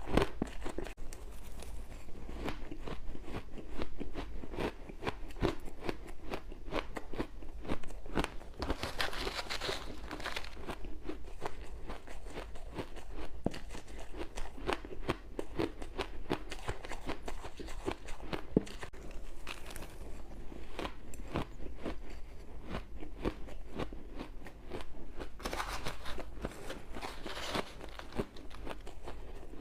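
Ice being chewed and crunched between the teeth: a continuous run of rapid crackling crunches, with a few louder, sharper bites along the way.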